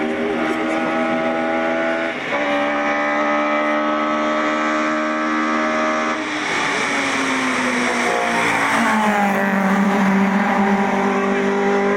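Toyota Corolla AE86 race car's 1.6-litre four-cylinder engine running hard at steady high revs, with a brief break about two seconds in. From about six seconds in the engine note falls away, then settles at a lower steady pitch near the end.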